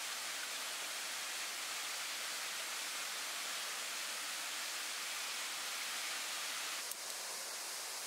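Steady, even hiss with no distinct events. A single sharp click comes about seven seconds in, after which the hiss changes slightly.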